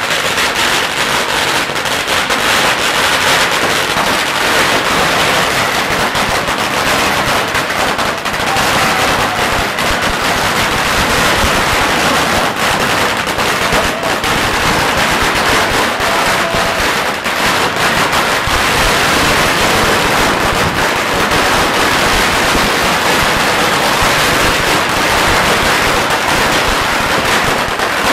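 A long string of red firecrackers going off in a rapid, unbroken crackle.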